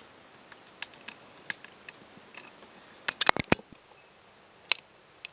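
Scattered light clicks and taps of a hard plastic figure being handled, with a quick run of sharper clicks about three seconds in and one more a little later.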